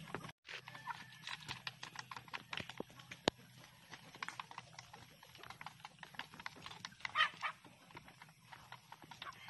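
Chickens and roosters pecking feed out of a bamboo trough: rapid, irregular clicks of beaks striking the bamboo, with one sharper click about three seconds in.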